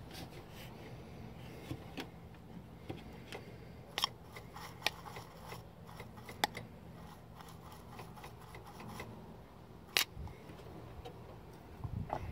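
Small hand tools being handled: scattered sharp clicks and light taps, the sharpest about ten seconds in, over a low steady hum.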